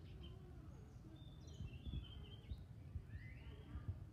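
Faint birds chirping, a run of short high notes through the middle, over a low rumbling background noise with a few soft thumps.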